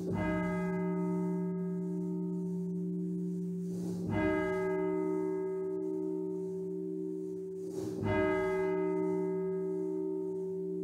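A single church bell tolling slowly for the dead, struck three times about four seconds apart. Each stroke rings on with a long, deep hum that carries through to the next.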